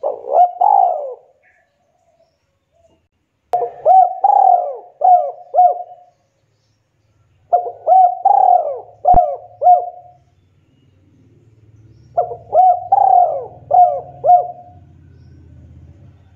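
Spotted dove (tekukur) cooing: four phrases of three to five coos each, a few seconds apart.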